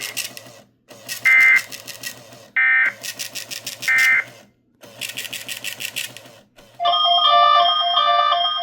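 Emergency Alert System SAME header: three buzzy bursts of digital data tones, each lasting a second or two with short gaps between. They encode the test alert that a weather-radio transmitter is sending. Near the end, a run of steady electronic tones stepping between pitches begins.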